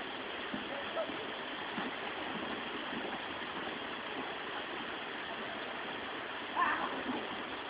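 Waterfall water rushing steadily, with one brief louder sound, such as a short voice, about six and a half seconds in.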